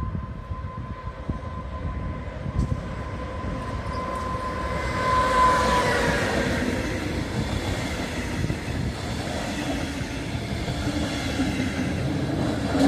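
A diesel locomotive hauling a double-deck regional train arrives and passes close by. A steady whine grows and then stops as the locomotive goes past, about six seconds in, which is also the loudest moment. After that, the coaches' wheels rumble and clack by over the track.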